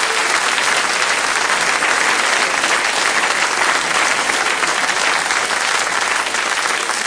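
Audience applauding steadily, the dense clapping of a large crowd.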